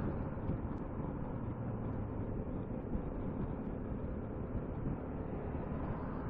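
Steady wind rush with engine and road noise from a Piaggio MP3 500 three-wheeled scooter cruising at motorway speed.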